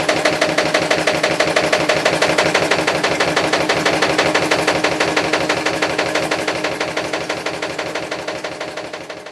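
Panasonic NA-VX7000R washer-dryer on its spin cycle, its drum making a loud, rapid, evenly repeating knocking with a steady hum beneath. This is the abnormal noise the unit makes when spinning a slightly unbalanced load; the owner suspects an internal part striking something, though a service check found no cause. The knocking fades over the last few seconds.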